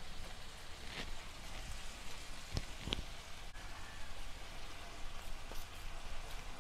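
Wet hands squeezing and packing crumbly spiced çökelek curd into a ball over a steel tray, a fine steady crackle with crumbs falling onto the metal. Two short sharp taps about two and a half and three seconds in.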